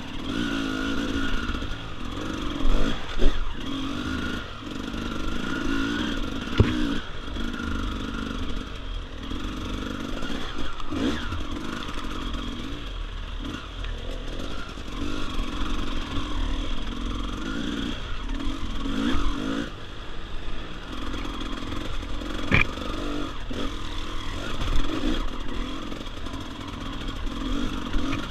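Dirt bike engine running with the throttle rising and falling, with occasional knocks and clatter from the bike riding over rough ground.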